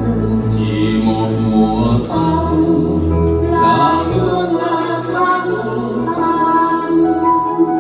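Live singing of a slow Vietnamese song, with long held notes, over electric keyboard accompaniment and a low bass line that changes note every second or two.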